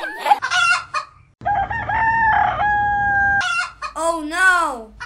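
Chickens clucking and a rooster crowing: short clucks, then one long held crow, then a call falling in pitch near the end.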